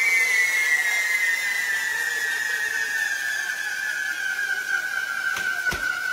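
Pyrotechnic spark fountains burning with a hiss and a whistling tone that slowly falls in pitch, with a few sharp cracks near the end.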